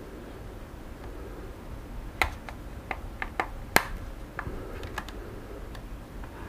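A run of about ten sharp plastic clicks and snaps, the loudest near the middle, as the clip-fastened plastic shell of a Xiaomi Mi Drone 4K remote controller is prised apart by hand.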